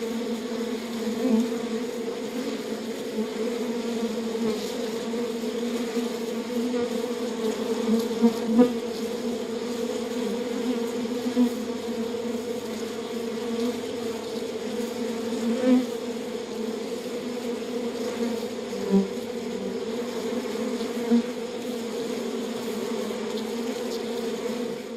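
Honeybee hive humming steadily, with many bees buzzing together and now and then one bee buzzing louder as it passes close. The sound ends at the very end.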